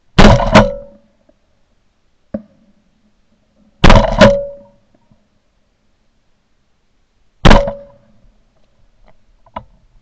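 Shotgun fired at passing doves: five loud blasts, two in quick succession, then two more a few seconds later, then a single one near the end.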